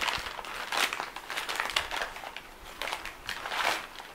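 Old yellowed newspaper crinkling and rustling as it is unwrapped by hand from around a small glass, crackling on and off with louder rustles about once a second.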